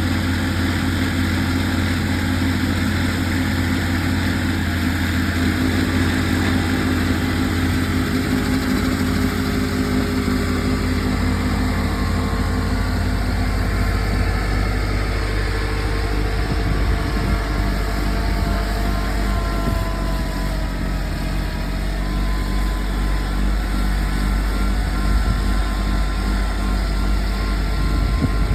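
A motor vehicle engine running steadily with a deep, continuous rumble; a few fainter tones drift slowly in pitch in the second half.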